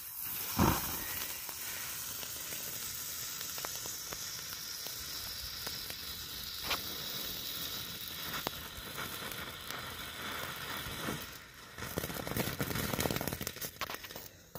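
Novelty dinosaur spark fountain firework hissing steadily as it sprays sparks, with one sharp pop about half a second in. Near the end the hiss turns rougher and louder with crackling as flame bursts out around the figure.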